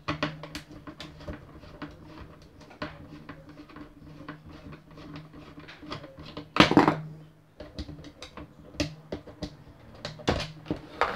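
Small plastic clicks and rattles as a Nerf blaster's plastic shell and its screws are handled during disassembly, with one louder clatter about two-thirds of the way through.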